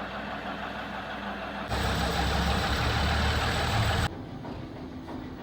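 Lathe running with a steady mechanical hum; it turns abruptly louder and heavier for about two seconds in the middle, then drops back.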